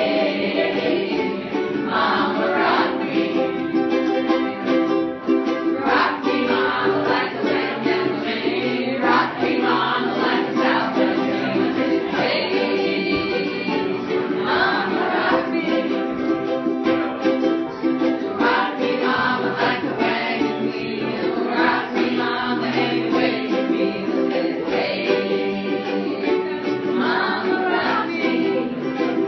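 Live acoustic music: a strummed string instrument, with voices singing along.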